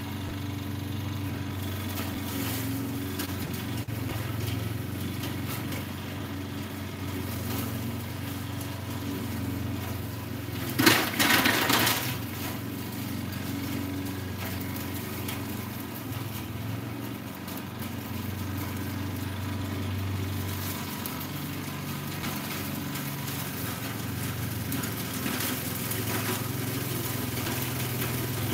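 Gas lawn mower engine running steadily at a distance, its hum slowly rising and falling as it moves across the yard. A brief loud noise about eleven seconds in lasts around a second.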